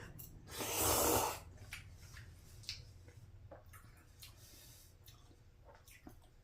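A sharp, loud breath through the nose or mouth, about half a second in and lasting under a second. It is followed by faint eating noises and a few small clicks.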